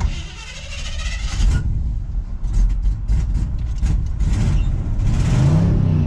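Chevy C10 pickup's engine being restarted after a stall: a click, about a second and a half of cranking, then the engine catches and runs, revving up about five seconds in. The stall is put down to the engine not yet being warmed up.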